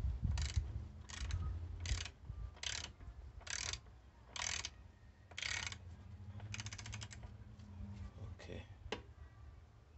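Ratcheting wrench tightening an SRAM GXP bottom bracket cup into the bike's threaded shell. It makes a series of short ratchet strokes about every three-quarters of a second, followed by a run of quick fine clicks.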